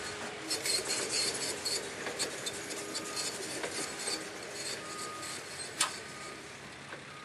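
Scraping and clicking as gear is handled against rock and metal at the front of a stopped rock-crawling truck: a quick run of scrapes in the first couple of seconds and one sharp click later on, over a steady background hum.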